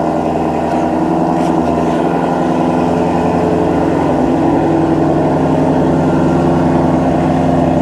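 Ford Mustang Shelby GT350's 5.2-litre flat-plane-crank V8 idling steadily.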